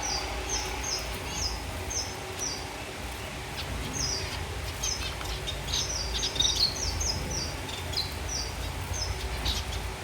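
Zebra finches in a colony aviary calling: many short, high chirps from several birds, some in quick runs, over a steady low background hum.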